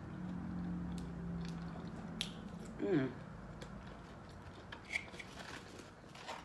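A woman chewing seafood boil with her mouth closed, humming a low steady 'mmm' for the first two seconds or so and a short falling hum about three seconds in, with scattered wet mouth smacks and clicks.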